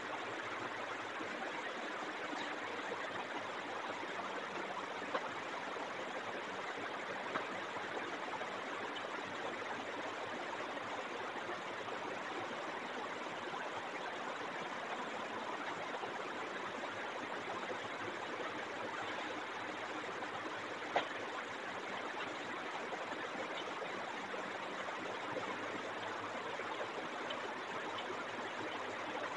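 Steady, even hiss of room noise with a few faint clicks, the sharpest about two-thirds of the way through.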